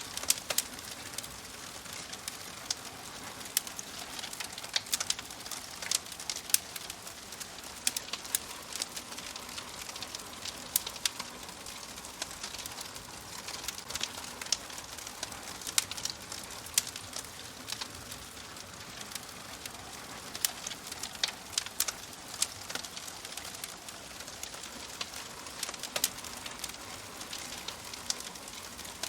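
Crackling fire: a steady hiss with frequent sharp, irregular pops and snaps.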